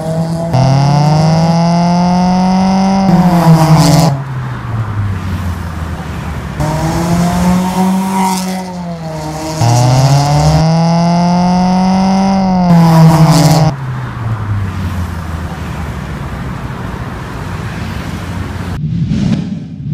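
A 2014 Toyota Corolla's four-cylinder engine, breathing through a full aftermarket exhaust system, revving hard in repeated pulls, each note climbing in pitch for a few seconds and dropping at a gear change. The pulls cut off abruptly about four seconds in and again about fourteen seconds in, leaving steady passing traffic.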